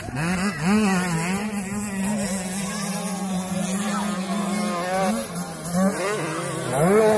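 Motocross bike engine running hard, its pitch rising and dropping again and again as the throttle is worked, with a steep climb in pitch near the end.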